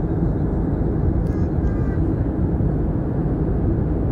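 Steady roar of a jet airliner's engines and rushing air, heard from inside the passenger cabin in flight shortly after takeoff.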